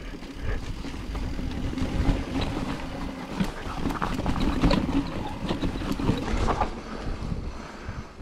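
Mountain bike riding down a dirt trail: wind rushing over the microphone, with tyres on rough ground and the bike rattling and clattering in quick irregular knocks.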